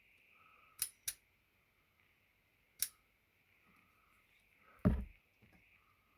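Hand tool clicking as it grips and works at the end of a bike part: two quick sharp clicks about a second in and another near three seconds, then a louder, duller knock about five seconds in.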